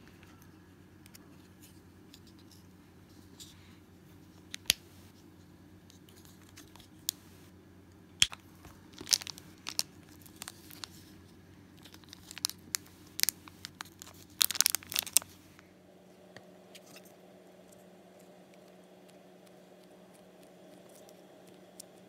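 Scissors snipping through a thin clear plastic mould tray, with sharp snaps and plastic crackle in irregular bursts, busiest from about eight to fifteen seconds in. After that there are only a few faint handling ticks over a low steady hum.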